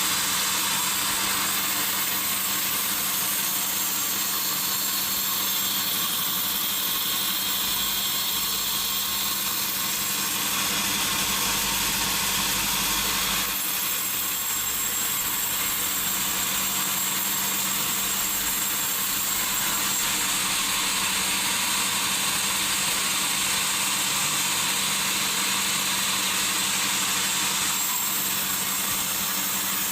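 Sawmill saw running steadily through a log: a constant machine hum under a steady hissing cutting noise, with a low rumble for a few seconds near the middle.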